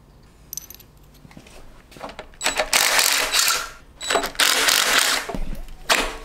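Hand tools working the bolts of a motorcycle's top triple clamp: two loud stretches of rapid ratchet clicking, each about a second long, in the middle, with metal clinks around them and a sharp knock near the end.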